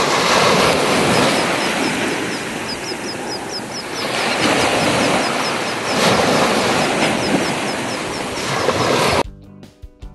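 Ocean surf washing onto a beach in slow swells, with a run of faint high chirps in the middle. About nine seconds in it cuts off and plucked guitar music begins.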